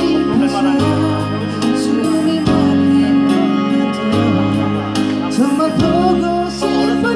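Live band music in the song's instrumental passage: sustained chords over a bass line, with regular drum hits.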